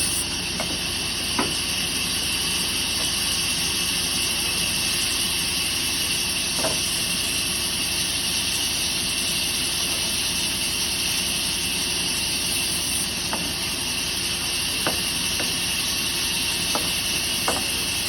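Workshop machinery running steadily with a constant hiss, and a few light knocks here and there.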